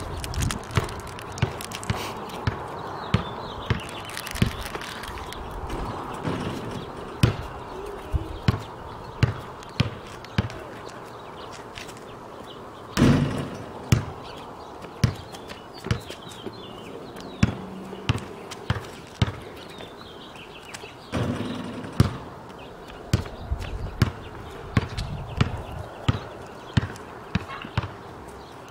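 A basketball bouncing on an asphalt street, dribbled in short, sharp bounces roughly once a second at an uneven pace, with a louder, longer knock about 13 seconds in and another about 21 seconds in.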